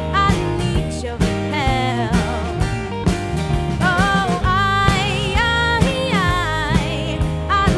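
Live band performance: a woman singing with vibrato over acoustic and electric guitars and a drum kit with cymbals, played at a steady beat.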